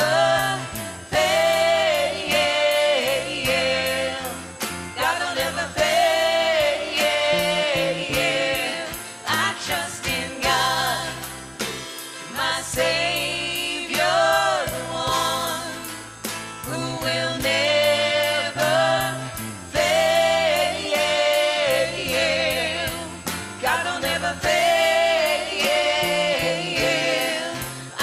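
Live worship band playing: a female voice singing long, wavering notes over bass guitar, guitar and drums, with a steady high percussion tick about twice a second.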